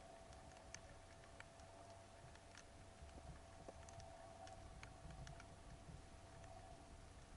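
Faint underwater ambience: scattered sharp clicks, about one or two a second, over a low rumble and a faint steady hum.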